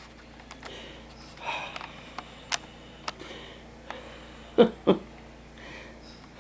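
Light handling noises in a small room: scattered soft clicks and taps, with two sharper knocks close together about four and a half seconds in.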